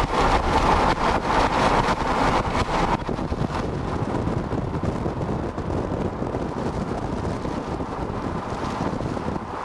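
Wind buffeting the camera microphone over the rumble of a moving vehicle. It is louder and brighter for the first three seconds, then settles into a steadier, duller rush.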